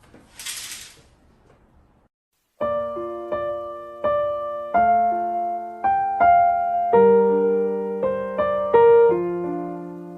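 Background piano music: a slow melody of single notes and chords, starting about two and a half seconds in. Before it there is a short burst of hiss.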